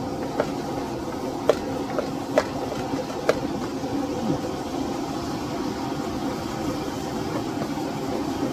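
A metal utensil knocking against a metal cooking pan four times in the first half, each knock ringing briefly, over a steady rushing noise.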